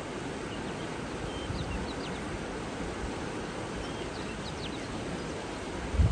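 Steady rush of flowing water with faint, short bird chirps scattered through the middle. A loud low rumble starts right at the end.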